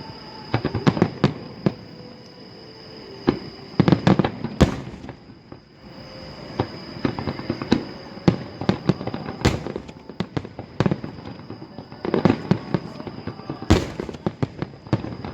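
Fireworks going off: rapid clusters of sharp pops and crackles, with single louder bangs about five, nine and a half and fourteen seconds in.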